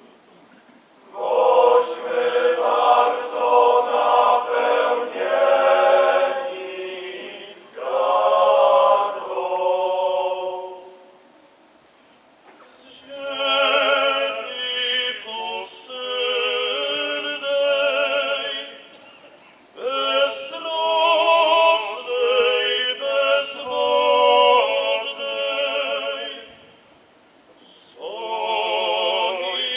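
A choir of men's voices singing in long, wavering phrases, with a few short breaks between them.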